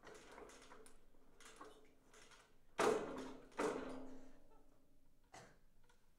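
A pull-down projector screen being tugged and worked on its spring roller, not yet catching: two sharp clanks from the screen and its case a little under three seconds in, each ringing briefly, with faint rattling around them and a single click near the end.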